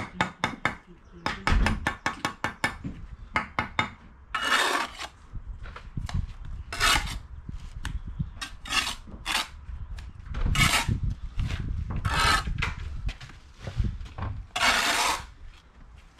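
Steel brick trowel working mortar on top of a course of bricks: a quick run of sharp taps, then about seven separate rasping scrapes of the blade across mortar and brick.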